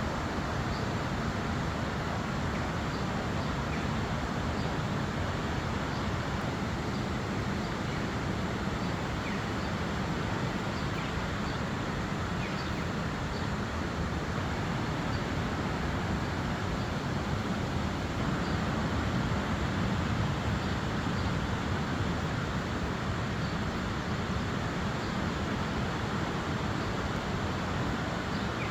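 Steady rush of the Lidder River, a fast mountain river, running as an unbroken wash of water noise.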